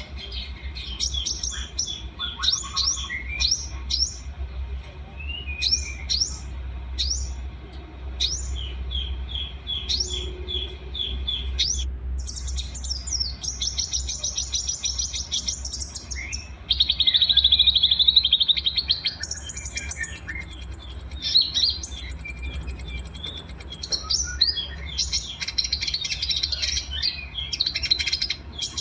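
Mixed small songbirds singing: a medley of quick down-sweeping chirps, repeated notes and high sustained trills. The loudest part is a dense rattling trill just past the middle, and a steady low hum sits under the first half.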